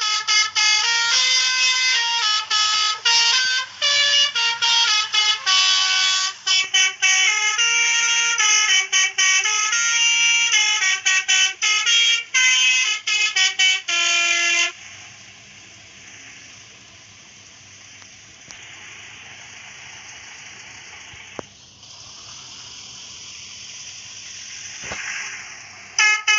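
Multi-tone basuri telolet horn playing a fast tune of stepped notes, then stopping about fifteen seconds in. What follows is a much quieter steady hiss with two sharp clicks, and the horn starts up again right at the end.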